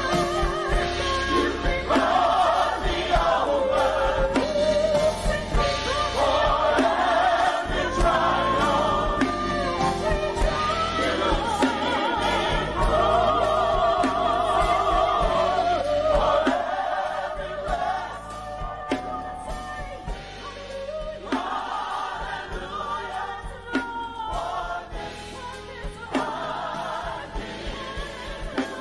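Gospel choir singing in full harmony with instrumental accompaniment. It grows softer about two-thirds of the way through.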